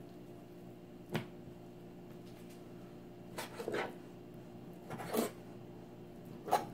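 Kitchen knife cutting a cojinova fish fillet into cubes on a wooden chopping board: a sharp tap about a second in, then three short slicing strokes that knock on the board about a second and a half apart, over a low steady hum.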